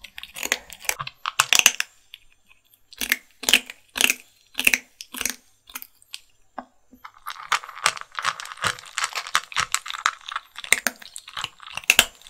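Kittens crunching dry kibble: irregular crisp bites and chewing. The crunching pauses briefly about two seconds in, then turns denser and quicker from about seven seconds in.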